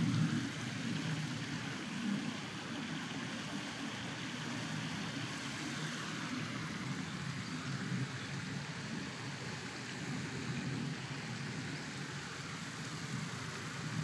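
Steady outdoor background noise: a low rumble with a fainter hiss above it, unchanging throughout, with no bird calls standing out.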